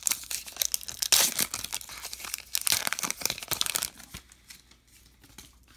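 Wrapper of a baseball trading-card pack being torn open and crinkled, a dense crackling for about four seconds, then dying down to a few faint ticks as the cards are handled.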